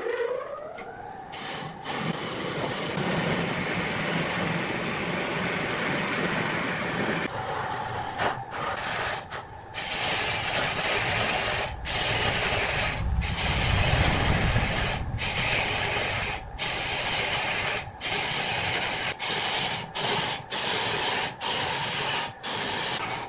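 A large wood lathe's motor spinning up with a rising hum, then a turning tool cutting into the spinning wood with a steady scraping hiss. From about a third of the way in, the cutting breaks off for an instant many times, about once a second, as the tool lifts off the wood.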